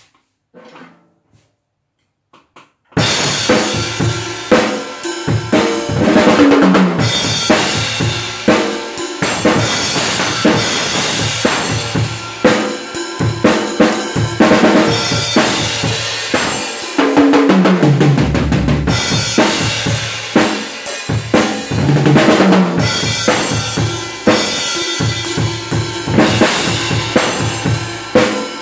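Acoustic drum kit played hard and fast: after about three seconds of near quiet, rapid strokes across the snare, toms, bass drum and cymbals begin and keep going, with several fills running down the toms.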